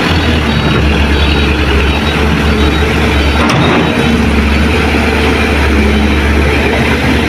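Diesel engines of light dump trucks running steadily, one driving slowly close by.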